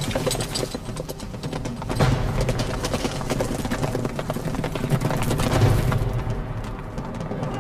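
Several horses galloping: a dense, continuous run of hoofbeats.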